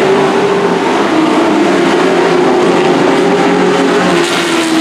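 Race trucks' engines running around a dirt oval, several engine notes at once, gradually falling in pitch.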